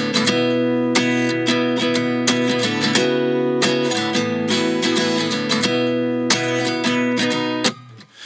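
Background music: an acoustic guitar strumming chords in a steady rhythm, dropping away briefly just before the end.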